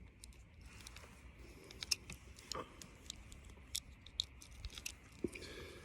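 Faint, irregular small clicks and rustling from handling a Taurus TX22 .22 pistol and its magazine; no shots are fired.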